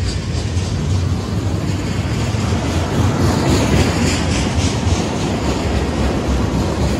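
Freight train tank cars rolling past close by: a steady rumble of steel wheels on rail, with clicks from the wheels crossing rail joints in the middle.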